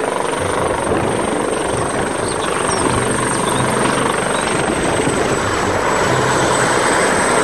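Helicopter hovering just above a helipad, its rotor and turbine running at high power: a loud, steady rush of rotor noise with a high, steady whine above it.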